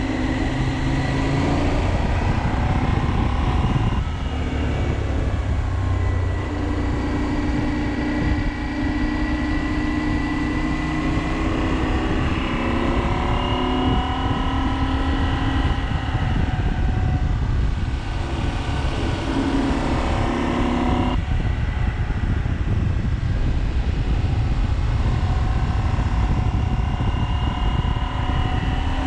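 KTM 790 Adventure motorcycle's parallel-twin engine running on the road, its pitch rising and falling with the throttle, over a heavy rumble of wind on the microphone. The pitch jumps suddenly about four seconds in and again about two-thirds of the way through.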